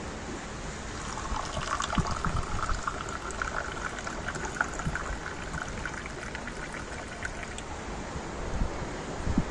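Tea poured from a small metal teapot into a glass: a trickling, splashing stream that starts about a second and a half in and runs for several seconds.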